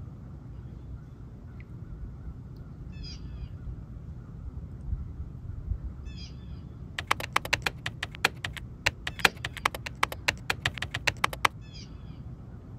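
A bird giving three short, harsh calls over a steady low rumble. In the middle there is an irregular run of sharp clicks, several a second, lasting about four seconds.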